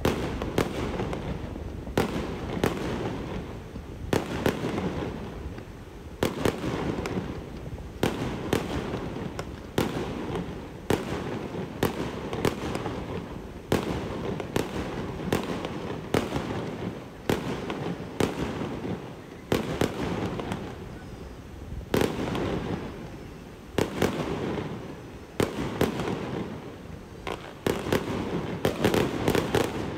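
Close-range fireworks display: a rapid series of sharp bangs from small shells bursting low overhead, about one or two a second, over a constant rushing noise.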